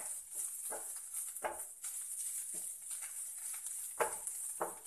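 Spatula stirring and scraping a grated-coconut and onion mixture around a nonstick frying pan, about six uneven strokes, over a steady faint high hiss.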